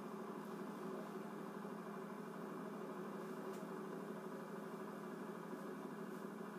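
Steady engine drone, heard through a television's speaker.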